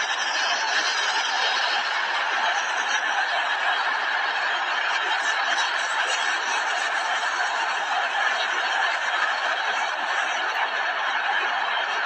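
Steady, continuous snickering and chuckling laughter.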